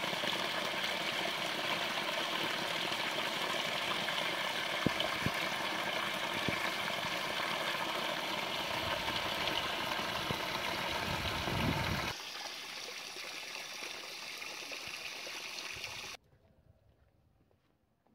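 A small spring waterfall spilling from a rock ledge and splashing onto stones: a steady rush of falling water. About twelve seconds in it drops to a softer level, and it cuts off suddenly about four seconds later, leaving near silence.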